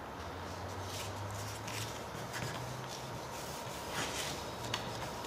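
Soft rustles and light scrapes of a paper towel being handled and wiped across a painted aircraft engine cowling, a few brief strokes over a low steady hum.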